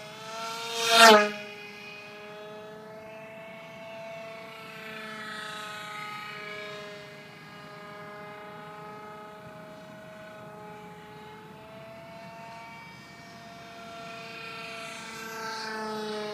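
Motor whine of a small radio-controlled model plane in flight. A loud close pass about a second in ends with a sharp drop in pitch. After that it holds a steadier whine as it flies farther off, and grows louder again near the end.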